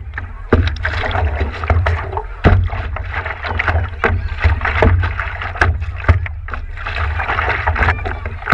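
Water splashing and slapping against the nose of a stand-up paddleboard as it is paddled, heard from a camera on the board, with paddle strokes in the water, scattered sharp knocks and a continuous low rumble.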